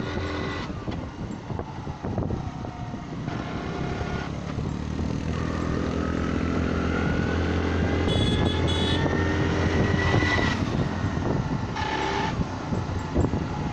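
A road vehicle's engine runs under way, rising in pitch as it speeds up through the middle. Two short horn toots sound about eight seconds in, and another comes near the end.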